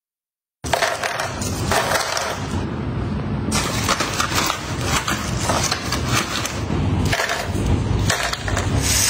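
Dried jerky dog treats being snapped and crumbled by a hand in a plastic glove: dense crackling and crunching that starts about half a second in.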